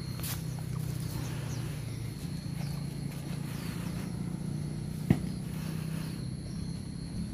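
Outdoor ambience of steady, high insect drone with a few short chirps over a low, steady hum. One sharp click comes about five seconds in.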